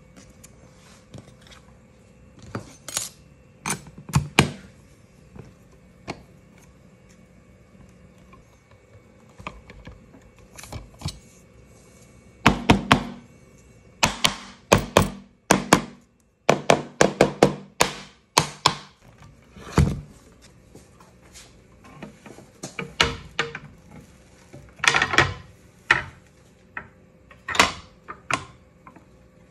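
Letterpress lock-up: steel furniture and quoins clicking and knocking against each other and the chase as they are set in place and tightened with a quoin key. The clicks and knocks are sparse at first, come in dense runs through the middle, and a few louder knocks come near the end.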